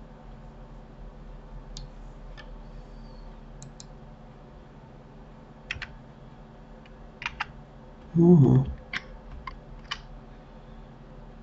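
Scattered clicks of a computer mouse and keyboard, about a dozen sharp single clicks, over a low steady electrical hum. About eight seconds in, a brief voice sound, the loudest thing here.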